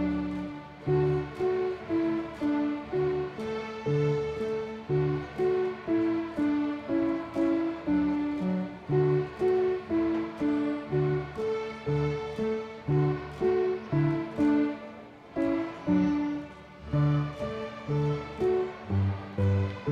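A large fifth-grade string orchestra playing a tune in a steady beat of short notes that start sharply and fade, like plucked strings, about two notes a second.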